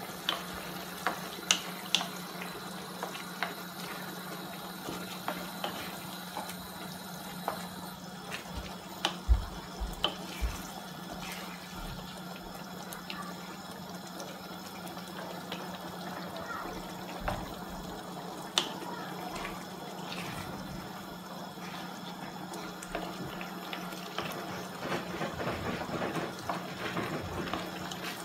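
Paella broth simmering and bubbling in a wide paella pan while a wooden spoon stirs through it, scraping and tapping the pan now and then. A steady low hum runs underneath.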